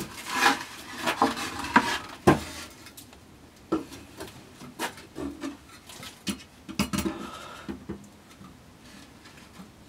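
A spruce cello top and hand tools being handled at a workbench: irregular wooden knocks, clacks and short rubbing, busiest in the first couple of seconds with one sharp knock just after two seconds, then sparser knocks.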